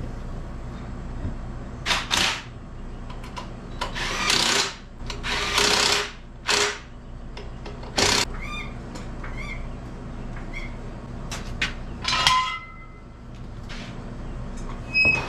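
Several short bursts of a handheld power tool, each a second or less, over a steady low hum, as the ATV's rear wheel and differential are put back together.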